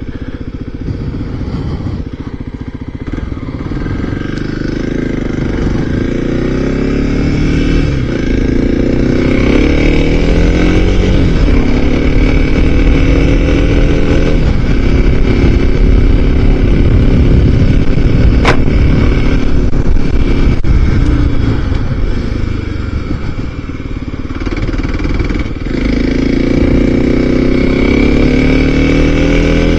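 Small motorcycle engine heard from inside the rider's helmet while riding. Its pitch climbs and drops back several times as it accelerates and shifts. There is one sharp click about eighteen seconds in.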